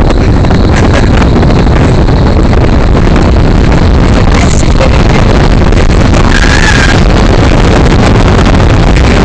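Strong blown air from a blizzard-simulator booth's fans buffeting the phone's microphone: a loud, steady rush of wind noise.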